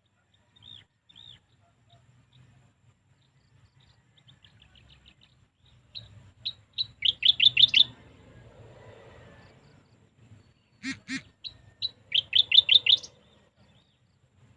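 A small bird singing: two loud phrases of quick repeated chirps, each speeding up into a rapid trill, about five seconds apart. Fainter single chirps come before them, and two sharp calls come just before the second phrase.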